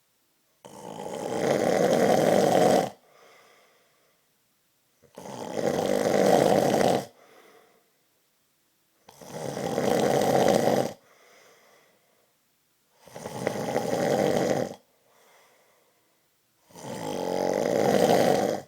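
A man snoring loudly in his sleep: five long snores about four seconds apart, each swelling for about two seconds before breaking off, with a faint breath out after each.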